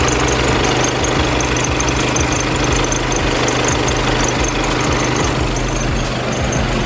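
Skoda Superb's 2.0 TDI (EA288, CRLB) four-cylinder diesel idling steadily, with a high squeak recurring over the engine noise from its serpentine belt drive.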